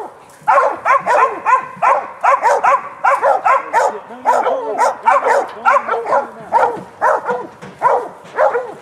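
Bay dogs barking rapidly and without a break, holding a sow at bay.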